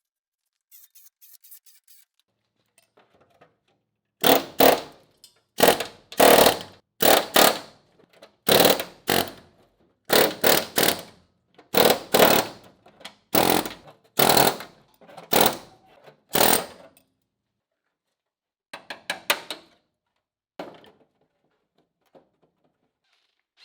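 A power tool working on sheet-metal bodywork, run in about a dozen short bursts of under a second each, with brief pauses between them. A few fainter bursts follow near the end.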